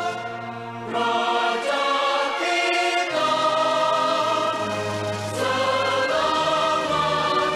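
A choir singing sustained chords, with a brief drop in level in the first second before the next phrase comes in.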